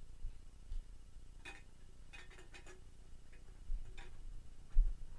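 Footsteps and small knocks of a person moving about a room: irregular light clicks, with a heavier dull thump near the end.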